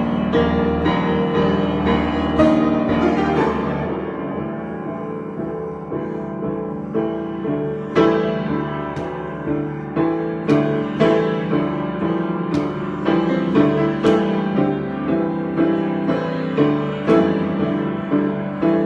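Solo piano improvisation: sustained chords ringing, growing softer a few seconds in, then notes struck in a steady pulse about twice a second.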